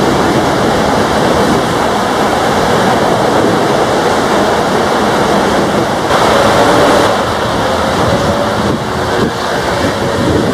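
Airbus A320-232 jet engines, IAE V2500s, at take-off power on a rain-soaked runway: a steady rushing jet noise mixed with the hiss of heavy rain and tyre spray.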